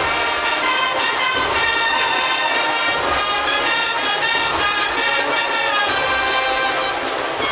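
A Spanish agrupación musical (a Holy Week brass-and-percussion band) playing a processional march: sustained brass melody and harmony over a steady drum beat.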